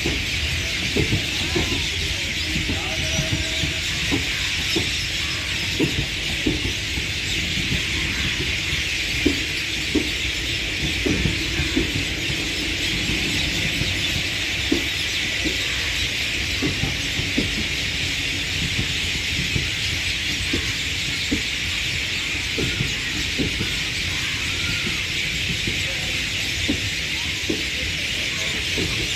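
Indian Railways passenger coaches rolling past as the train departs, their steel wheels clacking irregularly over rail joints under a steady high-pitched wheel squeal and a low rumble.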